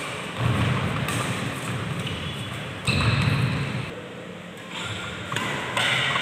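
Badminton doubles rally on a wooden court: rackets striking the shuttlecock and players' feet landing, echoing in a large hall. The loudness jumps sharply several times.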